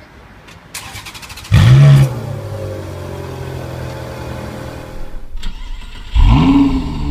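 Ferrari 430 Scuderia Spider V8 cranked by its starter, catching with a loud rev flare and settling to a steady idle. About five seconds in, a Lamborghini Gallardo V10 cranks and catches with its own loud flare near the end.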